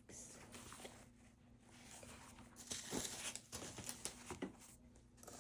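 Faint rustling and soft handling noises of a fabric drawer pouch and a planner being handled as the planner is fitted into the pouch, with a louder rustle about three seconds in.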